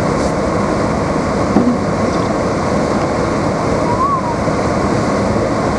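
Steady rushing noise inside a moving car's cabin: the heater blower running on high, mixed with road and engine noise.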